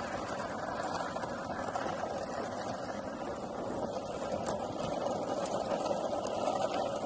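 Longboard wheels rolling over a tarmac path: a steady, rough rumble.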